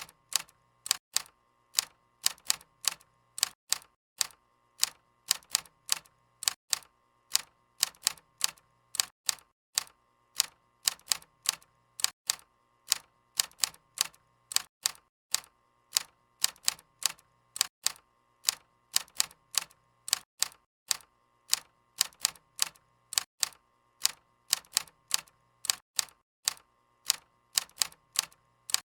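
Typewriter keys striking, sharp separate clacks at an uneven typing pace of about three to four a second, with short pauses between runs.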